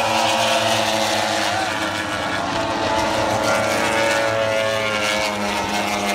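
A pack of Grand Prix racing motorcycles passing at high revs, several engines at once, their pitch sliding gradually lower as they go by.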